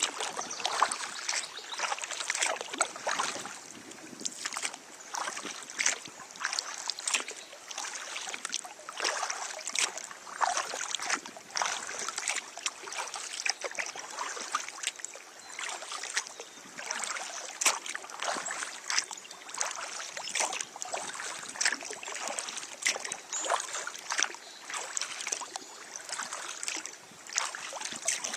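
Kayak paddling: paddle blades dipping and splashing in the water, with a dense run of small splashes and drips that swells and fades with each stroke.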